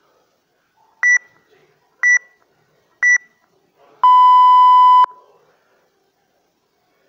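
Workout interval timer beeping: three short high beeps a second apart count down the last seconds of a round, then one long, lower beep about a second long marks the start of the next round.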